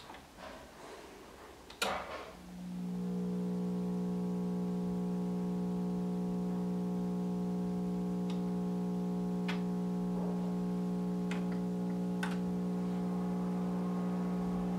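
Rack-mount UPS clicks on about two seconds in, then hums steadily at a low pitch, which should mean it is charging its lithium battery bank.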